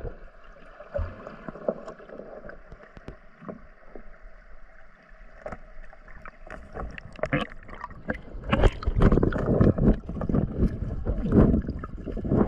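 Water splashing and sloshing in quick, irregular bursts, getting busier and louder in the second half.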